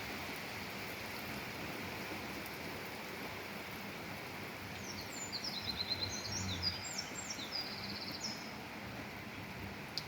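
Steady rain falling. About five seconds in, a songbird sings a quick run of short, high notes lasting about three and a half seconds.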